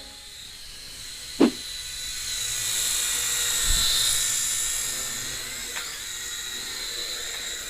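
Small quadcopter's electric motors and propellers whining at high pitch, swelling to a peak around the middle and easing off again. A sharp knock about a second and a half in, and a duller thump a couple of seconds later.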